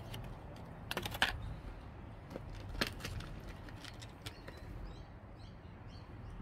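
Plastic diecast packaging being handled and opened: a quick cluster of sharp clicks and crackles about a second in, and another single click near three seconds. Small birds chirp faintly in the second half over a steady low hum.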